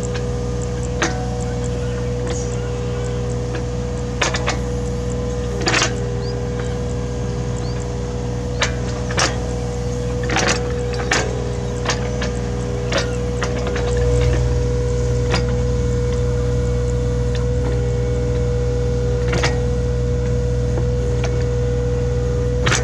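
Hitachi Zaxis 33U mini excavator's diesel engine running steadily with a constant whine, while irregular sharp knocks and clanks come from its work digging. The engine grows louder a little past halfway, as it takes on more load or revs up.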